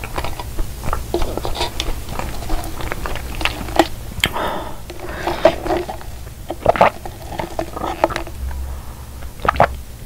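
Close-up mouth sounds of chewing cookie pie, with many short wet clicks and smacks, then sipping iced americano through a straw.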